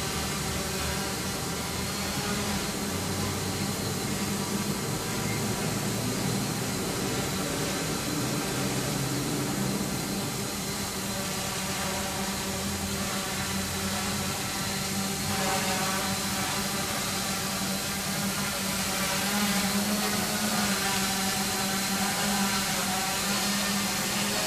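Quanum Venture quadcopter hovering, its electric motors and propellers giving a steady buzz of several tones that drift up and down in pitch with the throttle. It grows louder in the last few seconds as the quad comes closer.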